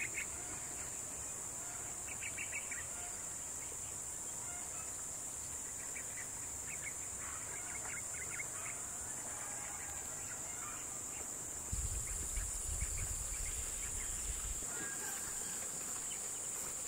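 A steady, high-pitched insect drone with short bursts of chirping calls now and then. A low rumble comes in suddenly about twelve seconds in and lasts about three seconds.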